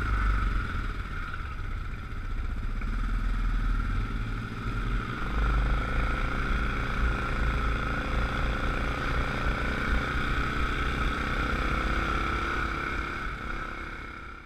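ATV engine running steadily on the trail, heard from on board the machine. It fades out just before the end.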